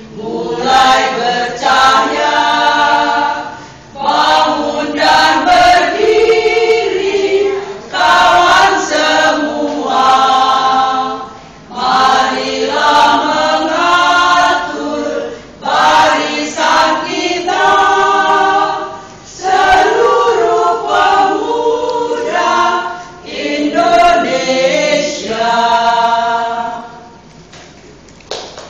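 Women's choir singing a cappella in phrases of a few seconds with short breaks between them; the singing dies away near the end.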